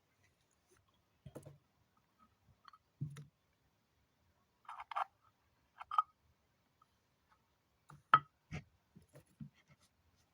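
Scattered light clicks and taps of small hard objects being handled, about eight of them at uneven intervals, the sharpest about eight seconds in.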